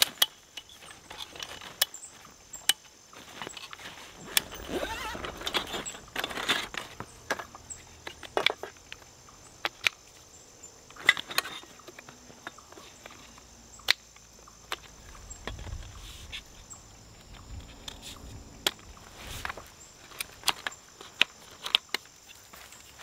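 Metal poles of a folding camp frame clicking and clattering as they are pulled from a fabric carry bag and fitted together, with some rustling of the bag. Insects chirp steadily in the background.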